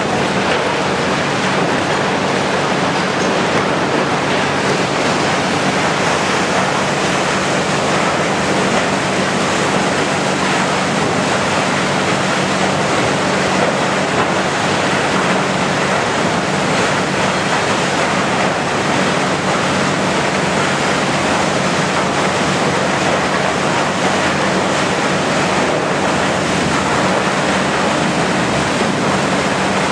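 Industrial biomass grinder (wood and bark hog) running under load, grinding wood waste and bark: a loud, steady, dense grinding noise with a constant low machine hum underneath.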